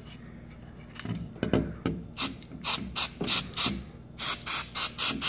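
Aerosol spray lubricant fired from a can in a rapid series of short hissing bursts, about ten in all, starting about two seconds in.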